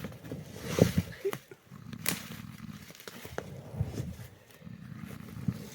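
A man snoring loudly in repeated rough, low breaths, said to be like a bear's, with a few sharp clicks in between.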